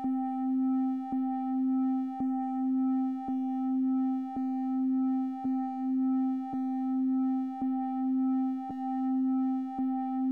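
Steady synthesized electronic tone, a low hum with a few overtones, that swells and dips about once a second with a short click on each beat. This is the 1 Hz audio pattern the listener's brain is meant to follow.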